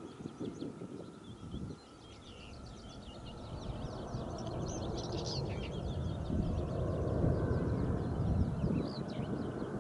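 Boeing 737-800's CFM56-7B jet engines on landing approach: a low rumble with a steady whine that grows steadily louder as the airliner nears. Small birds sing and chirp throughout.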